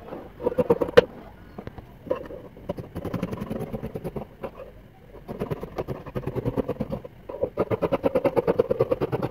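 Scissors cutting through layered African print fabric on a table, in several runs of quick snipping with short pauses between them. A sharp click about a second in.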